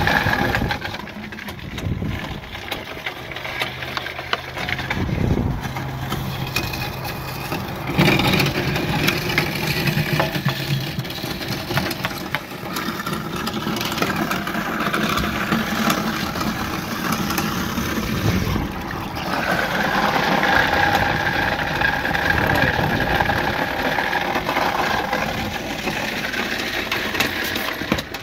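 Sink garbage disposal running, its motor humming as it grinds food scraps and moldy bread with a little gray water into a slurry. The grinding gets louder about eight seconds in and again for a long stretch near the end.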